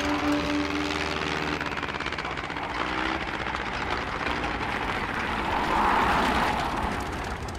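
Piston engine and propeller of a Hawker Hurricane fighter running as it lands and rolls along a dirt airstrip. The sound swells about six seconds in as the plane passes close.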